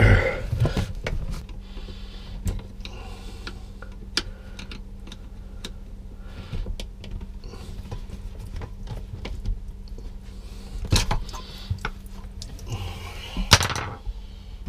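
Scattered clicks and knocks of hands handling the plastic hose fittings and vacuum breaker at the base of an RV toilet, a couple of louder knocks near the end, over a faint steady low hum.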